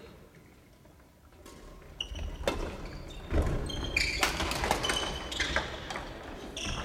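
Badminton rackets hitting shuttlecocks in a rally, a run of sharp, quick hits starting about two seconds in, mixed with short squeaks of sneakers on the wooden gym floor.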